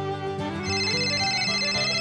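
Background music with steady held notes; about half a second in, a high, steady electronic tone joins it.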